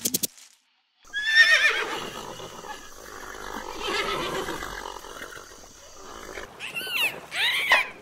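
Horse whinnying: a long neigh begins about a second in, falling in pitch and trailing off, with more short whinnies near the end.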